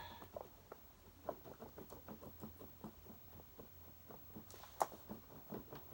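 Faint, irregular small clicks and taps of hands handling the plastic parts of an upright vacuum during reassembly, with one sharper click near the end.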